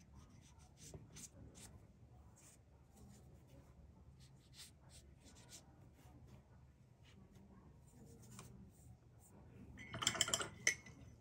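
Paintbrush working watercolour across paper: faint, scattered soft scratching strokes. Near the end comes a brief, much louder rustling clatter lasting under a second.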